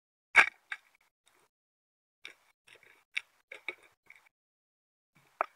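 Sharp underwater clicks and knocks. The loudest comes about half a second in, a cluster of lighter clicks follows between about two and four seconds, and one more comes near the end.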